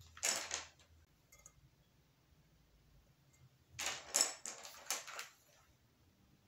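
A plastic bag rustling and small clear plastic crystal gems clattering onto a marble countertop as they are tipped out. There is a short burst just after the start and a longer run of several clicks about four seconds in.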